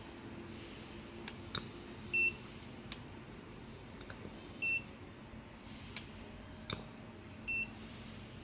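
EC-770 coating thickness gauge beeping three times, short high beeps a couple of seconds apart, each as a measurement is taken with its probe on the calibration film. Light clicks of the probe being set down on the plate come between the beeps.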